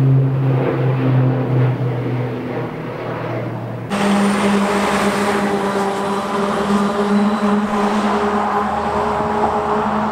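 Steady low drone of an air tanker's propeller engines overhead. It cuts off abruptly about four seconds in, replaced by a fire engine's engine running and its tyres on the road as it drives away.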